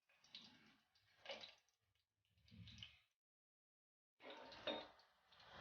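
Mustard and cumin seeds frying in hot oil in a cooking pot, heard faintly as four short bursts of sound with near silence between them.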